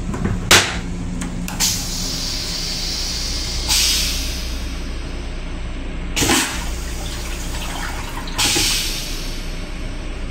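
Metro-North M7 railcar toilet flushing. A sharp click comes about half a second in, then short hissing rushes of water follow every two to three seconds as the bowl empties, over the steady hum of the railcar.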